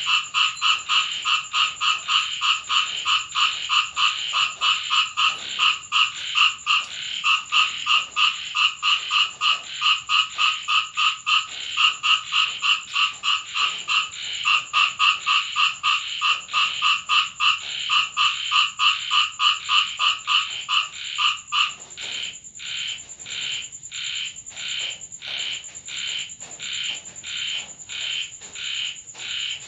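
Frogs croaking in a fast, even rhythm, about three calls a second. About two-thirds of the way through, the croaking drops to a quieter, slower series.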